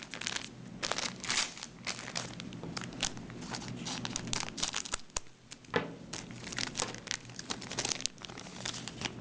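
Foil booster-pack wrapper crinkling and rustling in the hands as a trading-card pack is torn open, in irregular bursts with a sharper crackle about six seconds in.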